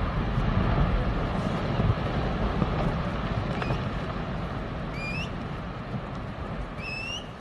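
Glacier calving: a deep, steady rumble of a large slab of ice collapsing from the glacier front into the lagoon, slowly fading.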